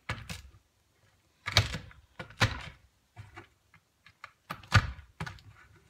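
Walnuts crushed between a container's bottom and its lid: several sharp, irregular knocks and crunches, the loudest about three-quarters of the way through.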